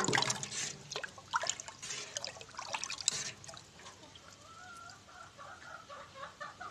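Water splashing and sloshing in a galvanized metal bin as a watering can is dipped in and filled, with clinks against the rim, loudest in the first few seconds. From about four seconds in, a hen clucks in a wavering, drawn-out call.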